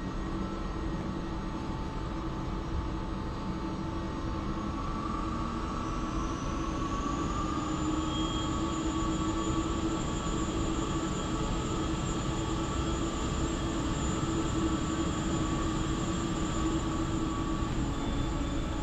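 Uijeongbu light-rail train standing at the platform, its electrical equipment giving a steady hum with several held tones. A faint high whine rises in pitch about six seconds in.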